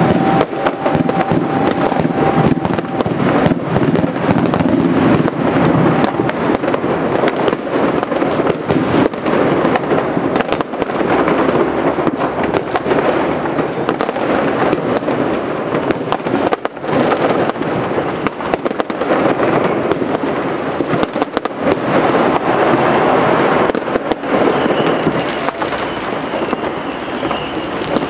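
Fireworks and firecrackers going off in a dense, continuous barrage: many sharp bangs and crackling overlapping without a break.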